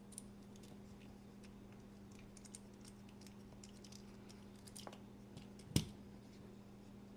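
Small scattered clicks, ticks and light scrapes of a tool working at the parts of a disassembled folding knife and its carbon fiber handle scale, with one sharper knock a little before the end.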